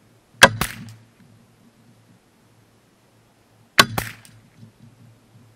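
Two shots from a Savage 64F semi-automatic .22 LR rifle, about three and a half seconds apart. Each sharp crack is followed a fraction of a second later by a second, quieter crack.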